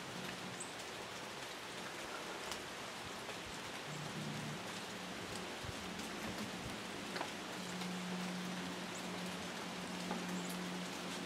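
Rain falling steadily, with scattered drops ticking close by.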